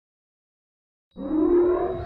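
Silence, then background music starts about a second in with sustained, droning tones.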